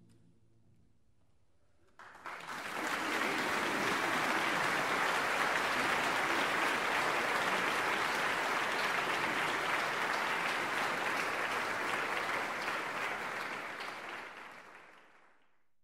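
Audience applause breaking out about two seconds in after a brief quiet, running steadily, then dying away near the end.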